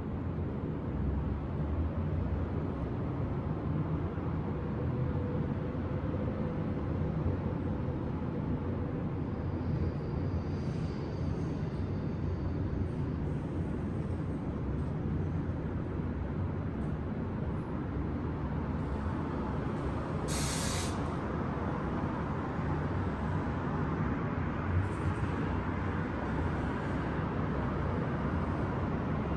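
Steady hum of city traffic with a short sharp hiss about two-thirds of the way through and a faint high squeal about a third of the way in.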